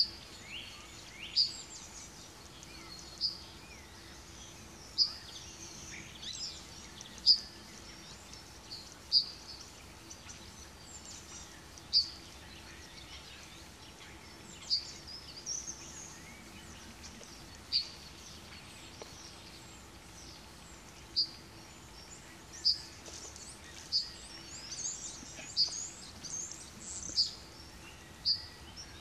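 Small woodland songbirds calling: short, sharp high chirps every one to three seconds, with fainter twittering between them, busiest near the end.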